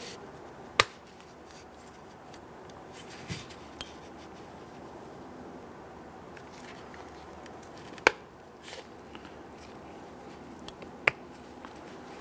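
Plastic retaining clips of a Ford Explorer door speaker snapping into the plastic door panel as the speaker is pressed in around its edge: three sharp clicks, about a second in, about eight seconds in and near the end, with a few smaller ticks between.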